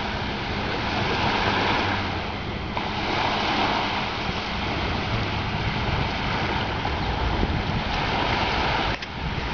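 Waves washing on a lakeshore, a steady rush that swells and eases every second or two, with wind rumbling on the microphone.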